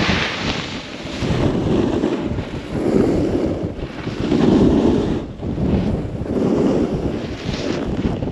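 Snowboards sliding and carving over packed snow, with wind rushing over the microphone; the scraping swells and fades every second or two as turns are carved.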